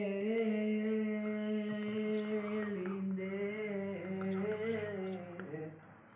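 A teenage boy singing solo, holding one long note that wavers slightly and fades out near the end.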